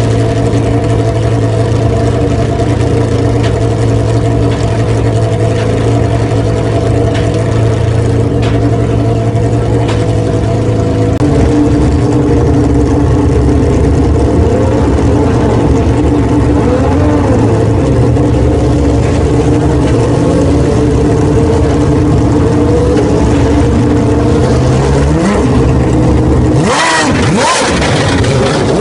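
GP3 Series single-seater's 3.4-litre V6 engine, just fired up, idling with a steady drone whose note shifts about a third of the way in. Near the end the revs rise and there is a loud surge as the car pulls away.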